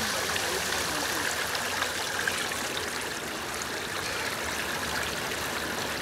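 Shallow seawater washing over pebbles and around boulders at the water's edge: a steady rush and trickle.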